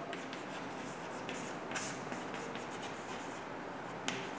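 Chalk scratching and tapping on a chalkboard as letters are written, quiet, with one sharper tap near the end.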